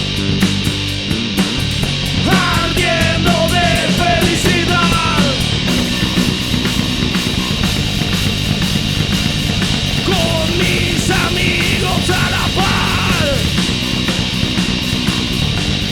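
Live rock band playing an instrumental passage: guitars, bass and drums, loud and steady, with a higher melodic line sliding in pitch twice, a few seconds in and again past the middle.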